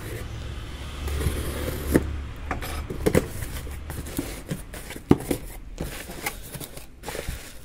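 A cardboard box being opened by hand: flaps scraping and folding back, and plastic packaging rustling, with scattered short clicks and scrapes.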